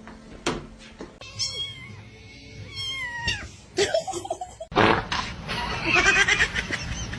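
A cat meowing, a few drawn-out meows; the one about three seconds in slides down in pitch at its end.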